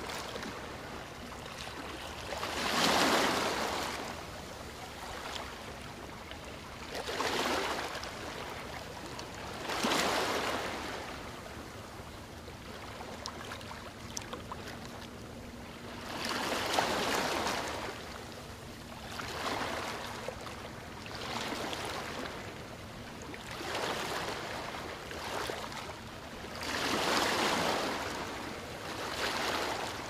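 Small sea waves breaking and washing up a sandy beach: a steady wash of surf that swells every few seconds, about nine times, each wave rising and then fading back.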